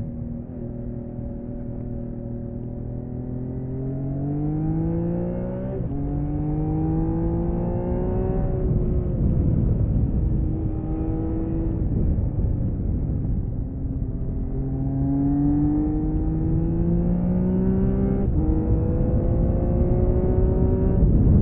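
The stock-exhausted inline six-cylinder engine of a 1979 Honda CBX 1000, heard onboard while riding. It accelerates with rising pitch, upshifting with a sudden drop about 6 s and 18 s in, and eases off for a few seconds in the middle. Wind rush runs underneath.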